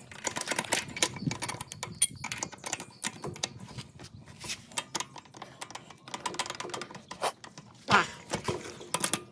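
Irregular light metallic clicks and clinks of the chain adjuster bolt and its washers being worked into the engine-mount hole of a minibike while the motor is lifted. A louder knock comes near the end.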